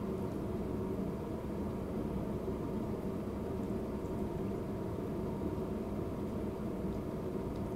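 Steady low hum and hiss of background room noise, unchanging throughout, with no distinct events.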